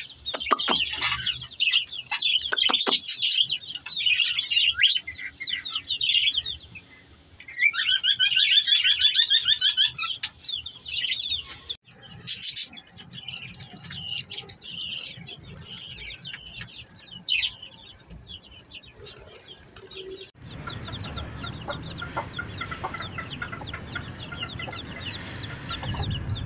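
Caged chicks and small birds chirping, thick and continuous for about the first ten seconds, then in scattered calls. In the last few seconds a broody hen clucks among her peeping chicks.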